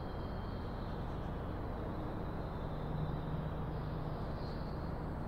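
Steady low background noise of a large shop space, even and without distinct knocks, with a faint low hum rising a little about three seconds in.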